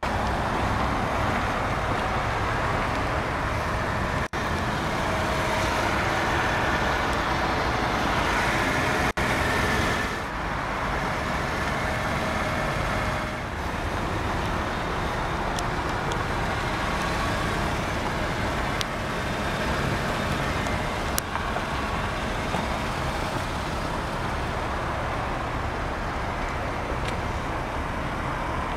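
Steady outdoor road-traffic noise with the E320's 3.2-litre V6 idling under it. The sound cuts out briefly twice, about four and nine seconds in.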